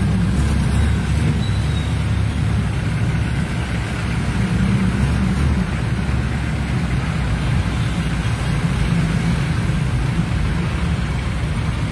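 Steady low engine rumble of a road vehicle heard from inside it, with an even hiss of traffic and water over it.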